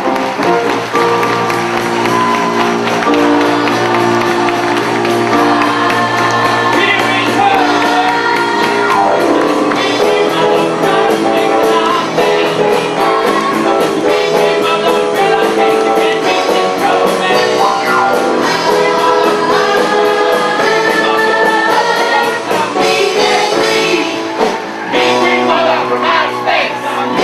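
Live pit band playing a musical-theatre number while a large chorus of voices sings along.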